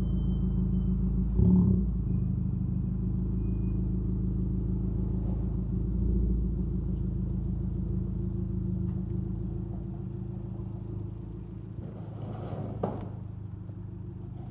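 Hyundai Genesis Coupe idling through its modified exhaust, a steady low rumble, with one brief louder burst about a second and a half in.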